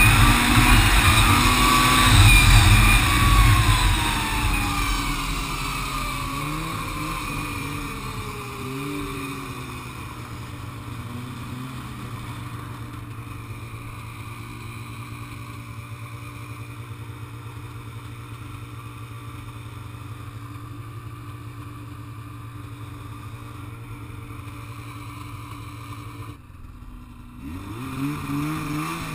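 Snowmobile engine slowing from speed, its pitch falling over the first few seconds, then idling steadily for about twenty seconds. Near the end it dips briefly, then revs up again as the sled pulls away.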